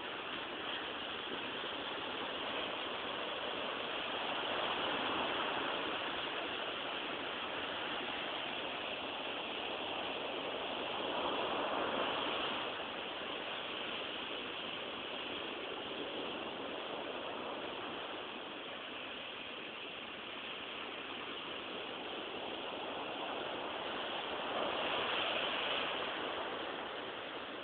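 Sea waves breaking and washing on the shore in a steady rush, swelling louder about three times as waves come in.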